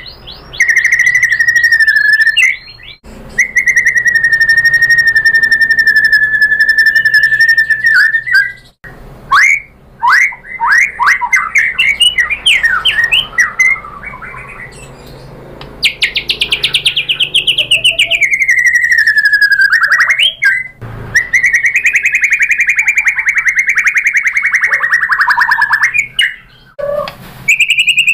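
White-rumped shama singing a loud, varied song: long rapid trills held for several seconds at a time, broken by quick sweeping whistled notes and short pauses.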